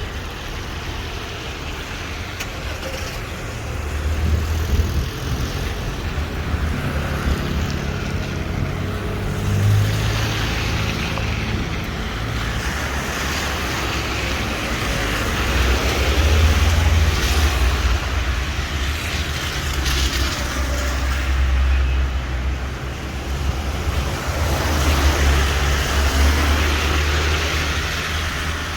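Road traffic on a rain-wet street: cars passing one after another, each swelling and fading, with tyres hissing on the wet surface over a low engine rumble.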